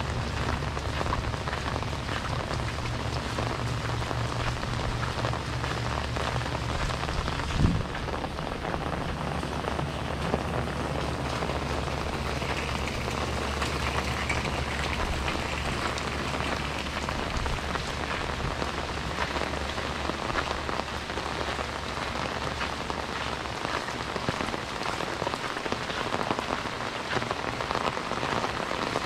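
Steady rain falling and pattering on surfaces, a dense hiss of drops. A low steady hum runs under it and stops about three-quarters of the way through. A single sharp knock comes about a quarter of the way in.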